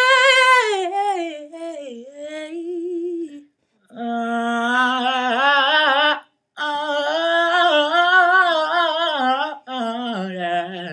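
Unaccompanied wordless singing: a high held note that slides down into a run, then lower vocal runs with heavy vibrato in three phrases, sung by a man's voice.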